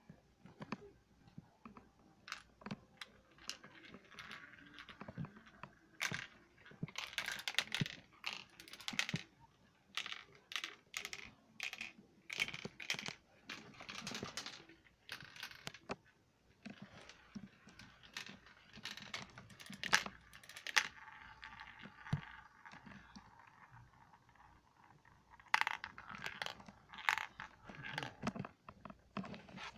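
Marbles clicking and clattering through a plastic marble run: irregular sharp clacks throughout, with stretches of denser rattling.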